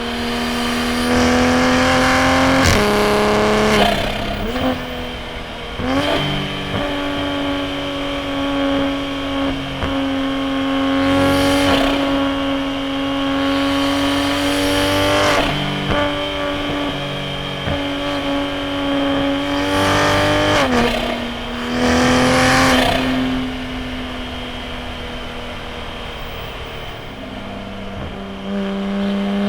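Toyota A90 Supra's B58 turbocharged inline-six on a straight-piped titanium single-exit exhaust, driven hard on a mountain road. Engine pitch holds fairly steady between several sudden steps, like gear changes, with short rushes of noise around them.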